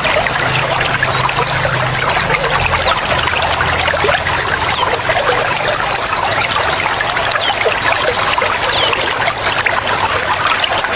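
Running water splashing and trickling steadily, with a wild bird singing over it in quick runs of high descending chirps, about three times. A low hum sounds under the water in the first few seconds.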